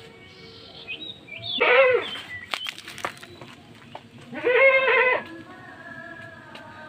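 Goats bleating: two loud, wavering calls about three seconds apart, with a few sharp knocks between them.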